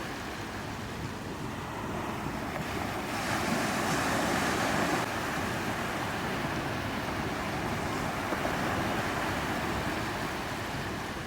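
Sea surf washing onto a beach, a steady rush that swells louder about three seconds in and eases back a couple of seconds later, with wind rumbling on the microphone.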